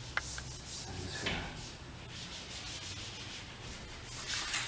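A cleaning wipe rubbed back and forth along the top of a car's door frame and window edge, a steady scrubbing swish, cleaning the surface before wind deflectors are stuck on. There is a sharp click just after it starts and a louder swish near the end.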